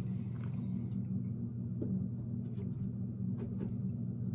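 A brief airy slurp as whisky is sipped from a tasting glass, followed by a few faint mouth clicks, all over a steady low hum in the room.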